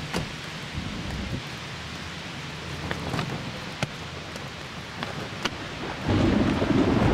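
Outdoor storm noise: a steady hiss of rain with scattered sharp ticks of drops. About six seconds in, a louder low rumble sets in.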